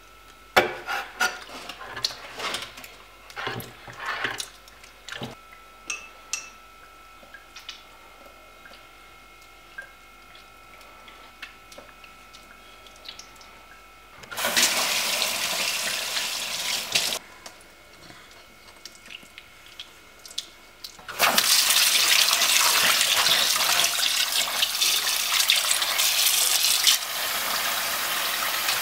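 Kitchen knife knocking on a wooden cutting board while cutting fish into pieces, a series of sharp knocks during the first few seconds. About halfway in, a tap runs into a steel sink for about three seconds. From about three-quarters in, tap water runs steadily into a plastic bowl as fish pieces are rinsed by hand.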